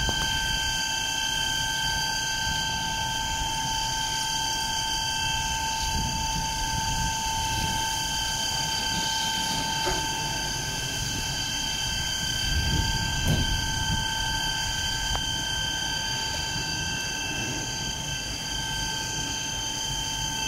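Fire engine's engine and pump running: a steady drone with constant high whining tones over a low rumble, which swells briefly about thirteen seconds in.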